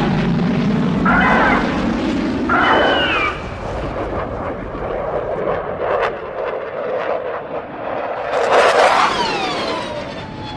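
Synthetic monster sound effect for a jet-creature: a low jet-engine rumble that fades out about three seconds in, overlaid with animal-like wailing calls whose pitch bends and falls. There are two calls close together early on and a longer one near the end.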